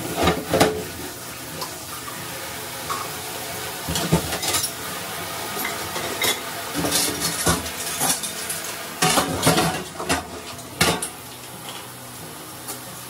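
Bowls and cups clattering as they are set into the upper rack of a dishwasher, in a series of irregular clinks and knocks.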